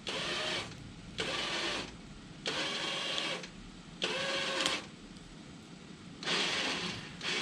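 Electric vehicle winch motor run in short bursts, a whirring pull of under a second each, about five times with brief pauses between.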